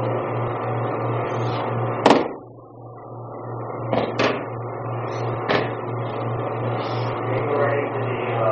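A person thudding onto the training mat as they are thrown about two seconds in, followed by three lighter thumps or slaps on the mat, over a steady electrical hum.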